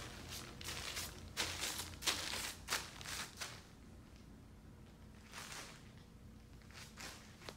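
Footsteps, first crinkling over plastic sheeting laid on carpet with a quick run of sharp rustles for about three and a half seconds, then a few softer, scattered steps.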